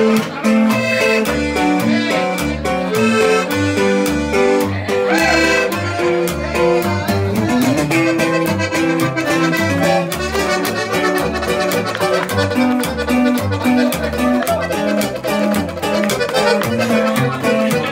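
A live norteño group playing: a diatonic button accordion carries the melody over a strummed bajo sexto and a steady, evenly spaced bass line.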